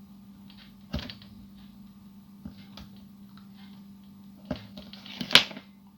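Small hard plastic parts being handled and test-fitted by hand: scattered light clicks and taps, then a short scrape ending in a sharper click near the end. A faint steady hum runs underneath.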